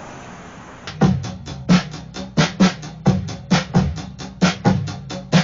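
Background music with a drum-kit beat, kick and snare, coming in about a second in after a moment of low steady noise.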